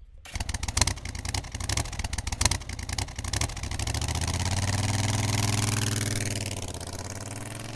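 1971 Moto Guzzi V7's transverse V-twin engine running with uneven exhaust pulses, then a steadier engine note that swells and fades as the motorcycle rides away.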